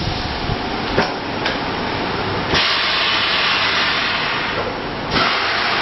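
High-frequency blister welding and cutting machine running with steady noise. There are clicks about a second in, then a loud hiss that starts abruptly about two and a half seconds in and cuts off sharply some two and a half seconds later.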